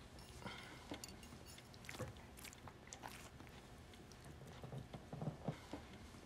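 Faint eating sounds: metal forks clinking and scraping on china plates in scattered small clicks, with some chewing.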